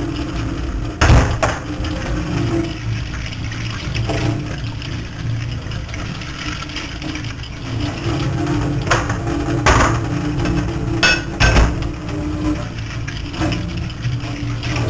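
Kitchen noises: a steady machine hum with sharp knocks and clinks of hard kitchenware, one about a second in and a cluster near the end.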